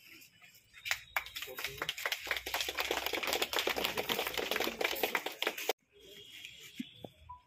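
A small group clapping in applause, starting about a second in and cut off abruptly near six seconds. A faint, steady high-pitched hum lies under the quieter parts.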